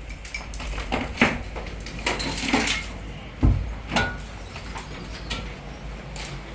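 Irregular knocks and clatters of objects being handled, the loudest a dull thump about three and a half seconds in, over a low steady hum.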